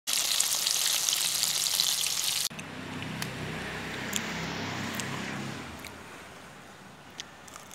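Batter-coated chicken feet deep-frying in hot oil in a wok, a dense sizzle that cuts off abruptly about two and a half seconds in. After that, a quieter low background hum with a few faint ticks.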